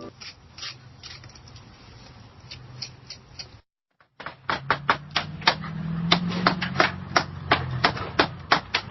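Sharp tapping: a few scattered taps, a brief cut to silence about three and a half seconds in, then rapid taps about four or five a second over a low hum.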